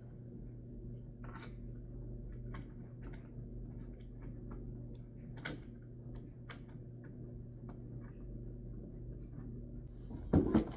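Scattered light clicks and taps of flat-pack bed assembly, screws and parts being handled, over a steady low hum. A louder knock and a short rustle of handling come near the end.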